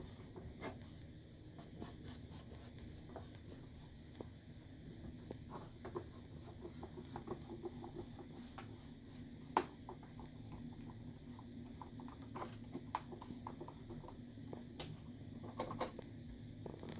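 Faint, scattered small clicks, taps and scratches of hands working the microwave door and its latch, with one sharper click about ten seconds in, over a low steady hum.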